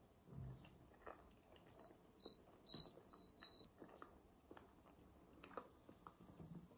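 A run of about five short, high-pitched chirps, evenly spaced over about two seconds, with scattered faint clicks and taps around them.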